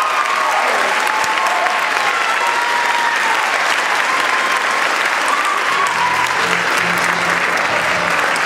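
Audience applauding and cheering, with a few high shouts in the first seconds. About six seconds in, low bass notes of music start up under the applause.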